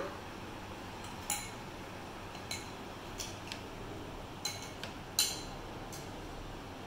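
A metal spoon clinking against small bowls while scooping: a handful of light, scattered clinks, the loudest about five seconds in, over a steady low room hiss.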